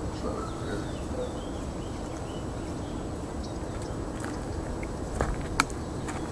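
Outdoor lakeside ambience: a steady low rumble of wind on the microphone with a few faint bird chirps, and two sharp clicks about five seconds in, the second the loudest.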